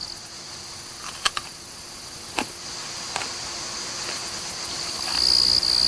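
Crickets trilling steadily, the trill growing louder from about five seconds in, over a few short soft clicks in the first half.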